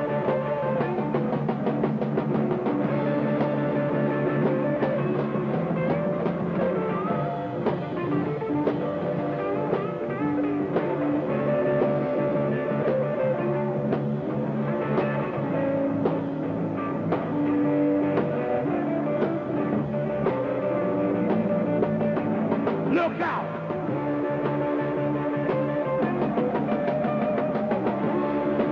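Electric blues band playing live in an instrumental break between sung verses: electric guitar, bass guitar and drum kit keep a steady beat with no singing.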